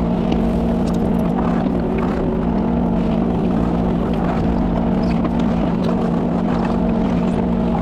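Kubota 33 mini excavator's diesel engine running steadily at a constant speed, with faint light ticks over it.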